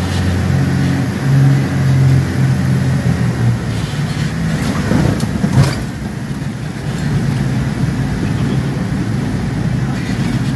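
Cabin noise of a Cessna 404 Titan landing: the drone of its twin piston engines runs steady, then fades about three and a half seconds in as power comes off. A short clatter comes about halfway through, followed by a steady rushing noise.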